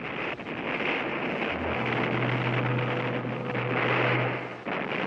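Steady engine hum over a rushing noise. The low hum comes in about one and a half seconds in and cuts off suddenly near the end.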